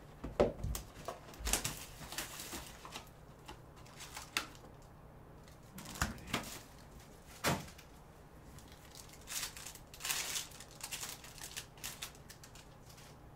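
Foil trading-card packs and their cardboard box being handled: crinkling wrapper rustles with scattered light clicks and taps.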